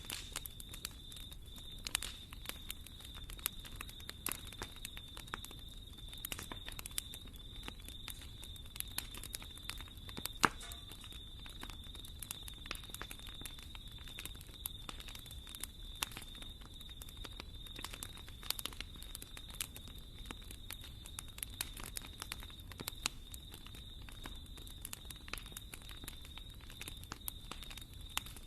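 Wood fire in a fireplace crackling and popping irregularly over a low steady rumble of flames, with one louder pop about ten seconds in. A faint steady high-pitched tone sits under it.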